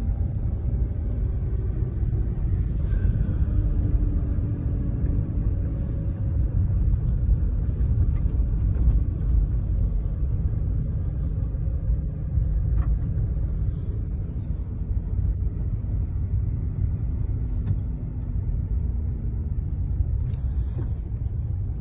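Steady low rumble of a vehicle driving on a packed-snow road, heard from inside the cab: engine hum and tyre noise, with a few faint ticks.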